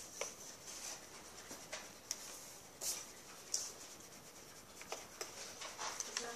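Faint scratching of pencils on paper and rustling of worksheets, in short scattered scrapes, as students mark their answers.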